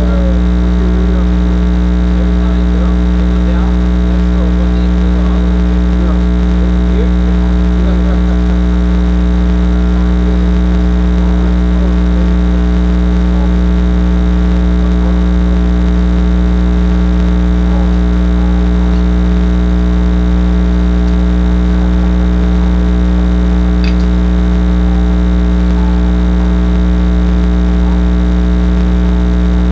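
Loud, steady electrical hum with a buzzing stack of overtones, unchanging throughout, with faint voices underneath near the start.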